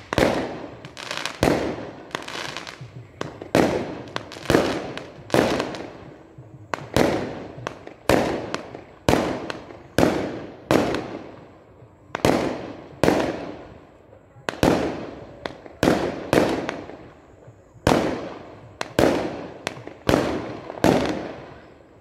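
Aerial fireworks shells bursting in a rapid, uneven series of about twenty-five bangs, roughly one a second. Each bang trails off in a rolling echo.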